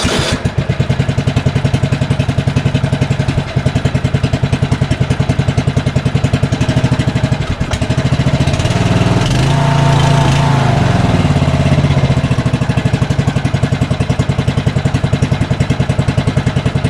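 Riding lawn mower's small engine running with a pulsing beat, freshly fitted with a new spark plug and battery. About seven seconds in it speeds up and runs smoother, its pitch wavering, then drops back to the pulsing beat. It fires but hesitates, for reasons the owners can't find.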